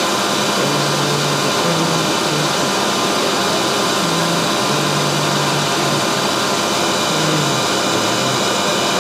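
Steady whir of running drive-panel machinery, from a Vacon variable-frequency drive's cooling fans and the motor it is running: a constant hiss with several steady tones, and a low hum that comes and goes.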